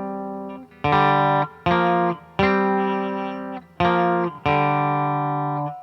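Les Paul electric guitar through the clean channel of an Ibanez TSA15H tube amp head (12AX7 preamp and 6V6 power tubes) into a 2x12 open-back cab: chords are strummed and left to ring and fade, five strokes, and the last is damped near the end.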